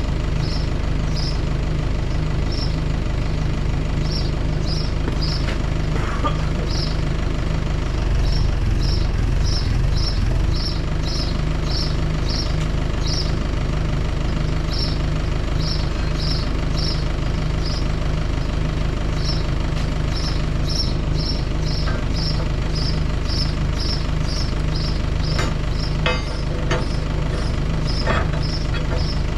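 An engine or motor running steadily with an even low hum. Short high chirps repeat irregularly over it, and a few sharp clicks come near the end.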